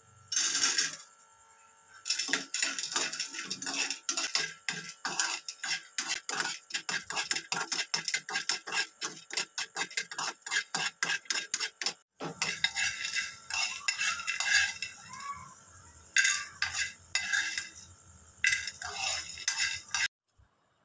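Metal spoon scraping and stirring pieces of gum tragacanth (gond katira) in ghee in a metal frying pan on low heat: quick repeated scrapes, about four a second. There is a brief clatter about half a second in. In the second half the scrapes slow over a faint sizzle.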